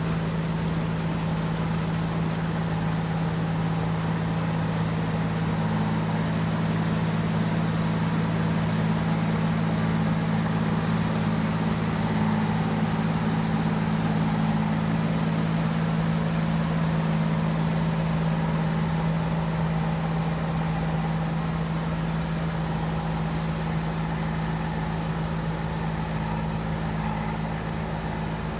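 Rice combine harvester's engine running steadily, an even deep hum with no change in speed.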